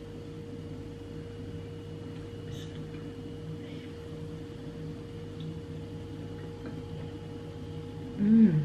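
Steady low appliance hum under faint sounds of eating by hand and chewing. Near the end, a short, loud 'mm' from the eater, falling in pitch.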